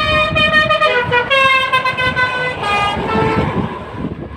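Basuri V3 'telolet' musical horn playing a tune of held notes that step from one pitch to the next, fading out near the end.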